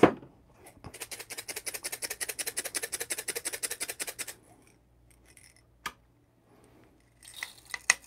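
Coffee beans rattling as they are shaken in a small dosing cup, a fast even rattle lasting about three seconds. Near the end, a brief patter as the beans are poured into the Niche Zero grinder's hopper.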